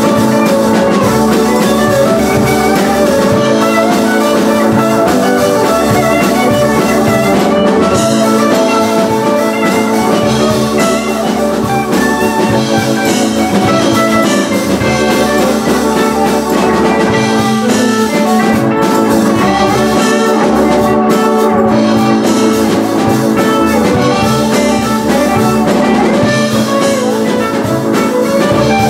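Live band playing an instrumental passage at full volume: electric guitar and keyboard over a drum kit, with a steady rhythm throughout.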